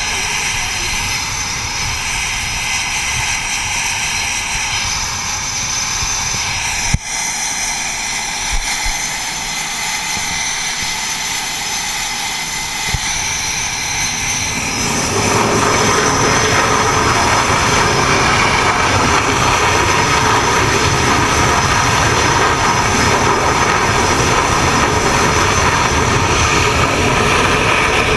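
F/A-18 jet engines running on an aircraft carrier flight deck: a steady roar with a high whine. About halfway through it swells louder and fuller, and a single sharp click comes about seven seconds in.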